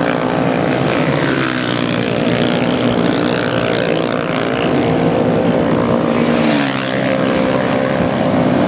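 Several off-road motorcycle engines running hard as the bikes race past across the sand, their pitch shifting up and down as they go by.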